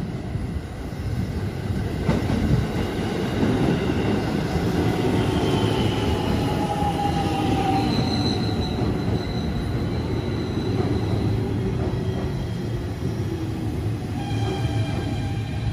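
Coupled JR Central 313 series and 211 series electric trains pulling into a station platform and slowing, a steady rumble of wheels on rail that swells about two seconds in as the cars reach the platform. High squeals from the wheels and brakes come and go over it, most in the middle and again near the end.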